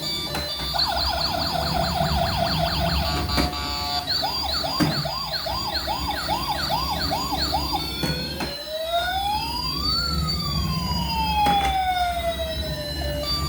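A toy emergency vehicle's electronic siren cycling through its patterns. It starts about a second in with a fast warble, changes to a slower rising and falling warble at about four seconds, then from about eight seconds makes long slow up-and-down wails.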